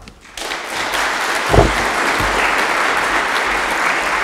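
Audience applauding. The applause starts about half a second in and then holds steady, with a single low thump about a second and a half in.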